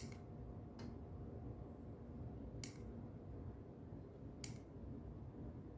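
Four short, sharp plastic clicks, irregularly spaced, from the button of a LiftMaster 380UT universal garage door remote being pressed over and over to teach it to a rolling-code Genie opener in learn mode. A faint low hum lies under them.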